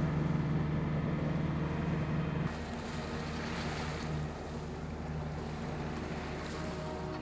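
A sailboat's inboard engine running steadily under way, a low even hum under the wash of water and wind. The sound changes abruptly about two and a half seconds in, dropping a little in level as the hiss of water and wind grows.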